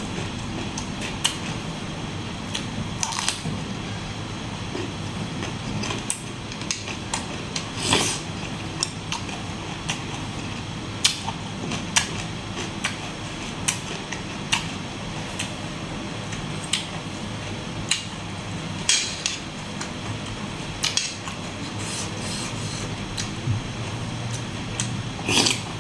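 Close-miked eating of squid salad: chewing and mouth sounds with frequent sharp, irregular clicks and crunches, over a steady low hum.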